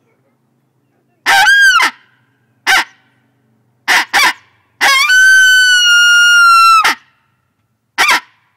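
Hand-held coyote call blown by mouth, imitating coyote vocalizations: a rising-and-falling yelp, a few short yips, then one long howl held about two seconds, and a last short yip near the end.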